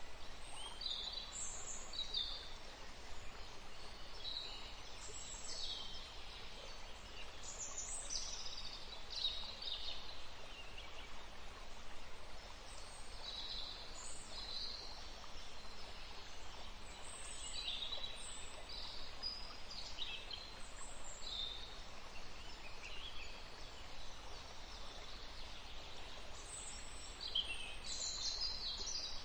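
Forest ambience: birds calling in many short chirps and trills scattered throughout, over a steady background hiss.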